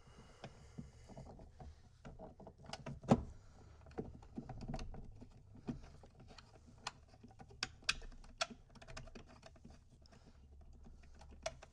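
Scattered clicks and knocks as roll bar surround pieces are handled and pressed into place inside a Jeep, with one louder knock about three seconds in.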